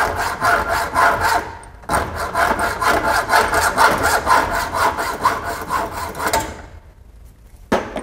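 Junior hacksaw sawing through the end of a two-core mineral-insulated copper-clad (MICC) cable in quick, even back-and-forth strokes, squaring off an end that pliers had squashed oval. The sawing pauses briefly about two seconds in and stops about six and a half seconds in, followed by a single sharp click near the end.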